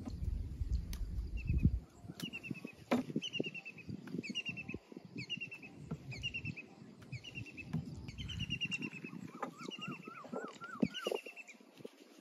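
Wild birds calling: one bird repeats a short falling chirp over and over, a little under a second apart, and a second bird adds a quick run of rising-and-falling notes near the end. A few light knocks from produce and a knife set down on a plastic cutting board.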